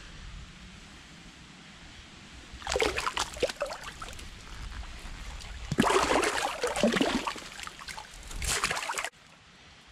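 Thick wet mud squelching and sloshing as a person shifts his body and pulls his legs out of a mud ditch. It comes in three bursts: about three seconds in, the loudest from about six to seven and a half seconds, and again near the end, where it cuts off suddenly.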